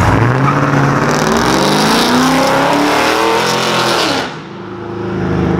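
Pickup truck engine and exhaust accelerating, the engine note climbing steadily. About four seconds in it eases off briefly, then builds again.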